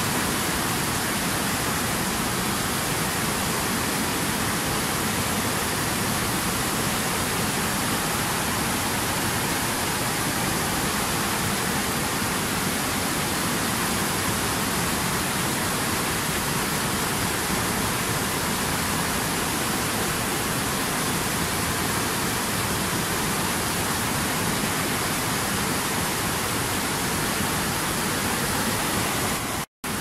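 Fast-flowing mountain river rushing over rocks: a steady, even whitewater rush that cuts out for an instant near the end.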